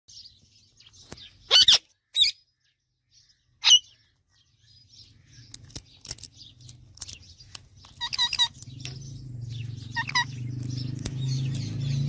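Rose-ringed parakeet calling: three loud, sharp screeches in the first four seconds, then softer chirps and clicks, with two short trilled calls about eight and ten seconds in.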